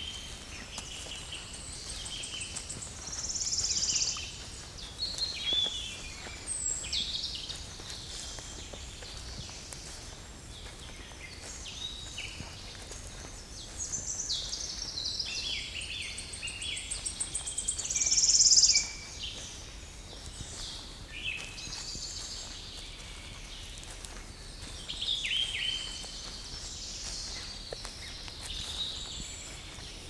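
Several forest songbirds singing in a spring dawn chorus, overlapping phrases of quick notes and trills, two louder songs standing out a few seconds in and just past the middle.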